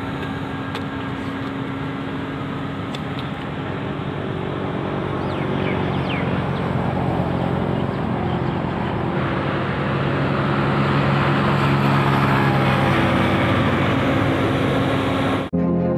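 Toyota Aqua hybrid hatchback driving on an open road, a steady hum of tyre and running noise that grows louder through the middle of the stretch and peaks as the car comes back close.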